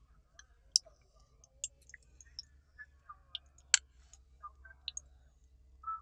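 Scattered sharp clicks and small pops, irregular, with two much louder clicks about a second in and near four seconds in: snail shells being set down on a flat stone slab heated over a wood fire, with the fire crackling beneath.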